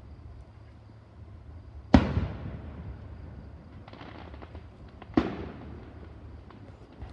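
Aerial firework shells bursting: two loud booms about three seconds apart, each trailing off in a rolling echo, with a short spell of faint crackling between them.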